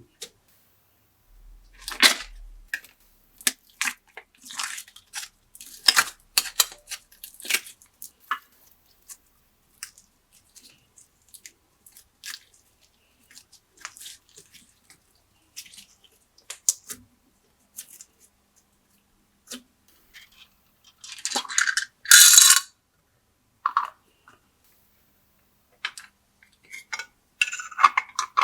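Glossy slime being worked by hand, giving irregular sticky clicks and small pops of trapped air. A longer, louder squelch comes about three quarters of the way through.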